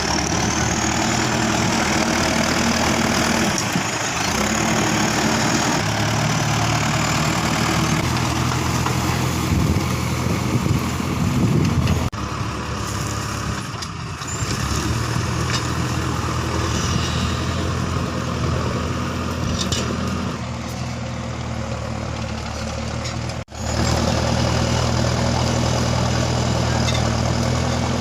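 Four-wheel-drive tractor's diesel engine running steadily under ploughing work. The sound breaks off abruptly twice, once just before halfway and once late on.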